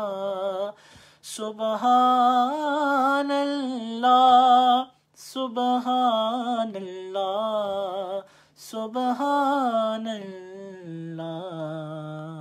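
A man singing a Punjabi devotional naat unaccompanied, drawing out long wavering notes without words, with short breaks for breath about 1, 5 and 8½ seconds in. Near the end he drops to a softer, lower held note, close to humming.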